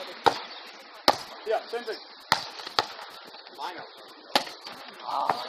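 A volleyball being struck by hands and forearms during a beach volleyball rally: six sharp slaps a second or so apart, with faint distant voices between them.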